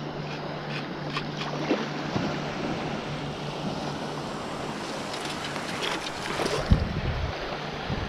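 Shallow water sloshing and splashing around a wading person's legs, with small scattered clicks. A low steady hum runs underneath and cuts off about seven seconds in with a single thump.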